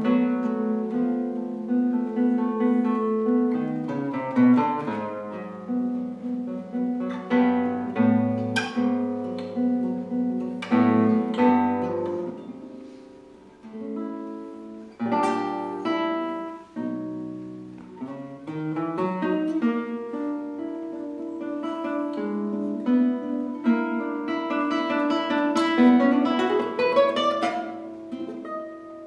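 Solo classical guitar playing a slow, lyrical piece, with plucked melody notes ringing over repeated low notes. The playing thins and quiets briefly about halfway through, then builds again.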